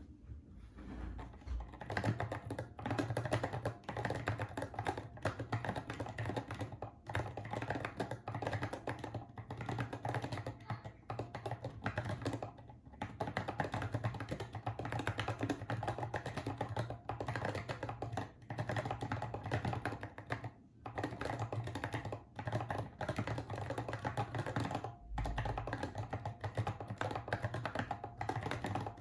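Typing on a keyboard: fast, continuous key clicks broken by short pauses every few seconds.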